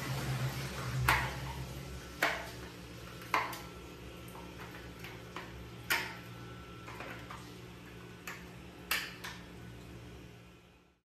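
Sharp plastic clicks and taps, about seven spread over several seconds, as a toilet flush valve assembly and its seal ring are handled, over a low rush of water in the tank that fades during the first few seconds.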